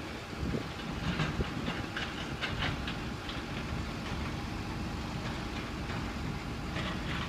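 Pile-driving rig running steadily with a hiss, with a few irregular metal clanks and no regular hammer blows.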